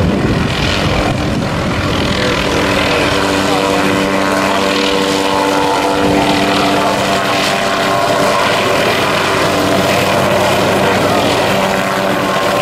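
Light helicopter hovering with a water bucket on a long line, its rotor and engine giving a steady hum of several tones over a rushing noise.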